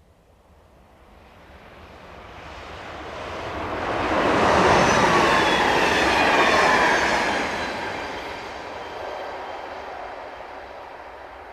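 Stadler KISS double-deck electric multiple unit passing at speed. It builds from quiet to loudest about four to seven seconds in, with a whine that falls in pitch as it goes by, then fades as the train moves away.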